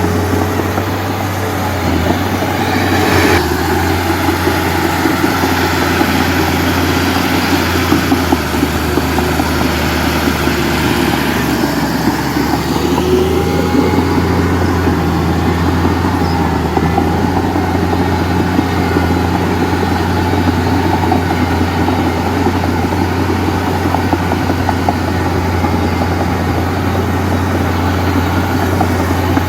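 Heavy diesel engine running steadily, with a single sharp knock about three seconds in.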